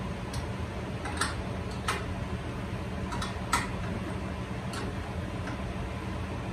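Irregular light metallic clicks and ticks, about eight of them unevenly spaced, from work on a large axial fan's hub and motor mount, over a steady low hum.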